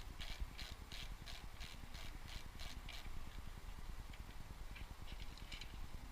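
Steady clicking, about three clicks a second, from a 5 mm Allen key turning the bolt of a bicycle's stem cap to remove it; the clicking stops about three seconds in, leaving a few scattered light clicks of parts being handled.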